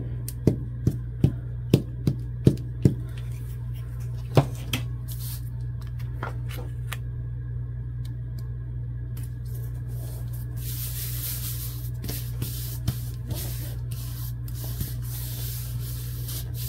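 A glue stick is worked over the back of a torn paper scrap, with a quick run of sharp taps about two or three a second for the first three seconds and one more a little later. Near the end comes a soft, hissing rub of hands smoothing the paper flat onto a cardstock tag.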